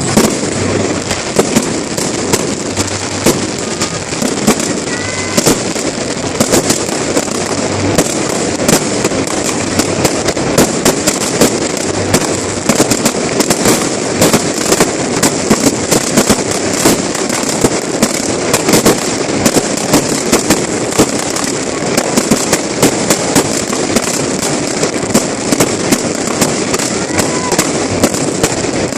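Fireworks display: a dense, unbroken run of sharp bangs and crackles, several a second.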